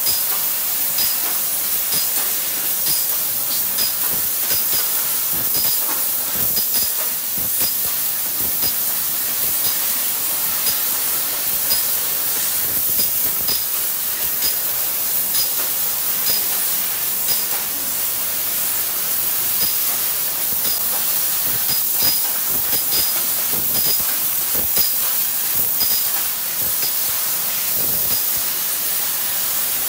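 Laser cutting machine's cutting head blowing a steady hiss of assist gas while it cuts sheet steel. Short high-pitched blips recur irregularly, about one or two a second, with faint clicks.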